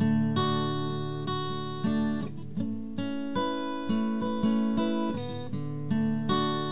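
Acoustic guitar music: chords strummed in a steady rhythm, about two strokes a second.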